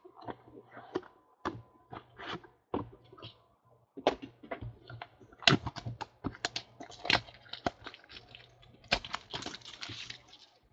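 Cardboard trading-card boxes being handled and opened: a run of irregular clicks, taps and knocks, with a burst of rustling near the end.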